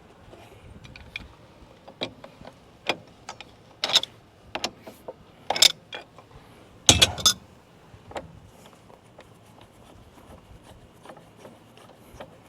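Hand tools clinking and clanking against the metal clamp and fittings of a truck engine's air compressor as it is taken apart: a scattered run of sharp metallic strikes, the loudest a heavy clank about seven seconds in.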